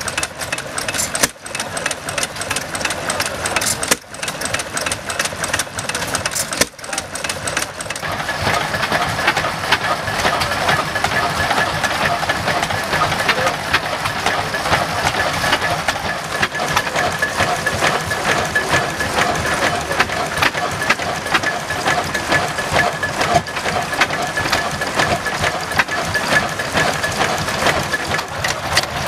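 Vintage open-crank stationary engines with large flywheels running, a busy clatter of rapid mechanical clicks and knocks. About eight seconds in the sound changes to a different engine, with a steady high whine under the clatter.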